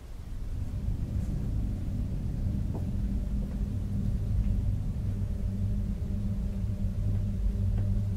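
A low, steady rumbling drone with a hum, swelling in just after the start and holding level.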